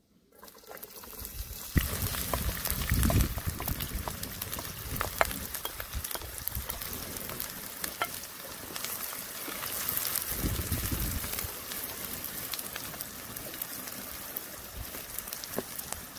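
Chopped onions hitting a hot pan over a wood fire about two seconds in, then frying with a loud, steady sizzle full of small crackles. A wooden spatula stirs and scrapes them in the pan.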